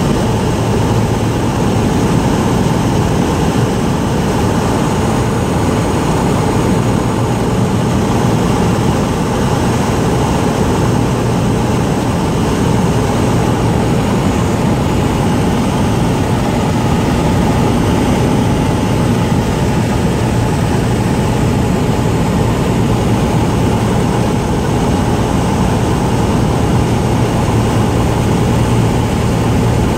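Light propeller airplane's engine and propeller droning steadily, heard from inside the cabin on final approach.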